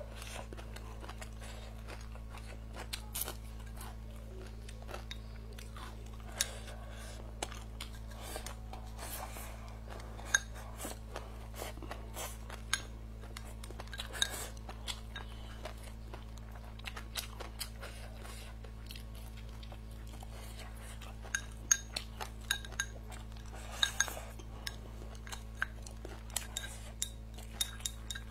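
Close-miked eating: chewing and crunching, with scattered sharp clicks of wooden chopsticks against a ceramic bowl, thickest near the end. A steady low hum runs underneath.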